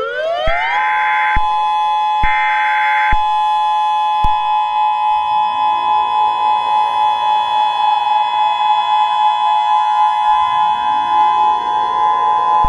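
Emergency Alert System tornado warning opening: two short screeching data bursts over a siren that winds up within the first second and holds a steady wail. The siren pitch winds up again about halfway through and near the end, with an even wobble in loudness.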